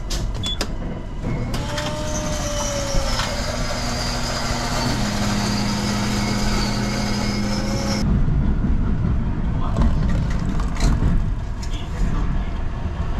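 Kintetsu 80000 series Hinotori limited-express train running, heard from inside the carriage. The running noise carries a high whine and a low hum, both of which stop abruptly about eight seconds in, leaving a rumble.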